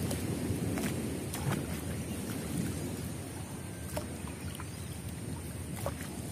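Water sloshing and dripping as a fishing net is lifted out of swamp water by a man wading in it, with a handful of sharp drips and splashes over a steady low rumble.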